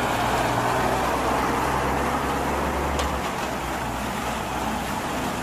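MAN concrete mixer truck's diesel engine running as the truck drives off on a wet road, with a steady hiss over a low engine drone. The low drone drops away about three seconds in.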